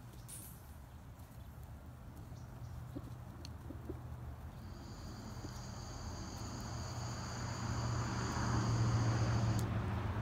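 Low engine hum of a motor vehicle growing steadily louder as it approaches. A steady high whine joins about halfway through and cuts off suddenly near the end.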